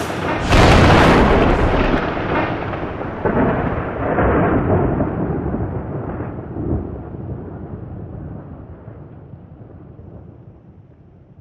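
A loud boom about half a second in, then a long thunder-like rumble with a few further swells that fades away steadily over the next ten seconds.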